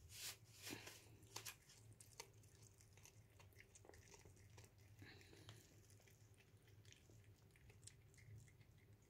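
Mother cat chewing on a newborn kitten: faint wet clicks and small crunches, with a cluster of louder ones in the first second and a half, then sparser ones.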